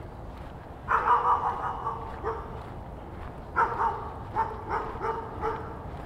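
A dog barking repeatedly, a string of short barks starting about a second in.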